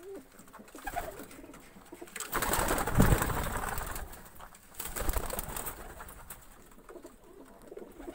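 Pigeons cooing softly, with two louder stretches of rustling noise, one about two and a half to four seconds in and a shorter one about five seconds in.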